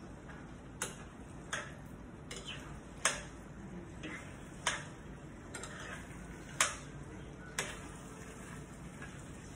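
A spoon stirring a thick, creamy filling in a stainless steel skillet, clinking against the pan at irregular intervals about once a second.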